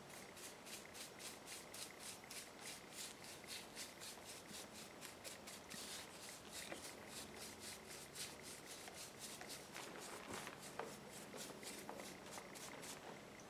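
Brush strokes applying varnish to a painted wooden carving: soft, quick scrubbing strokes, about three to four a second, with a few sharper taps near the end.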